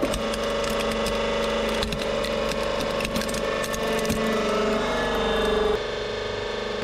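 Hydraulic press running with a steady hum while its ram crushes a plastic alarm clock, with sharp cracks and splintering as the casing and face glass break. Near the end the hum changes pitch.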